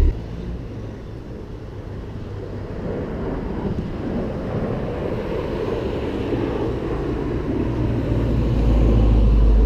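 An airshow airplane's engine heard overhead, growing steadily louder over the seconds, with wind noise on the microphone.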